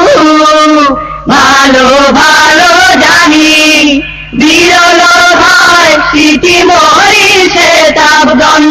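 A singing voice in a regional Bengali song holds long, wavering notes without clear words. The line breaks off briefly about one second in and again about four seconds in.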